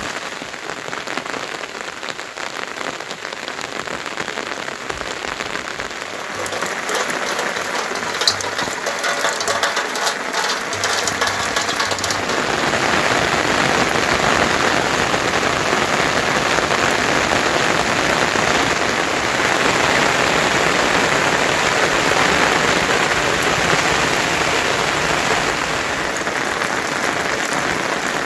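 Heavy rain falling, a steady rushing hiss that grows louder about a quarter of the way in and again near the middle, then holds.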